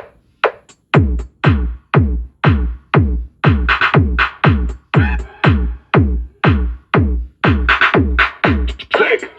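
Electronic dance remix with a steady drum-machine beat, about two hits a second. A deep bass kick comes in about a second in under the sharper percussion hits.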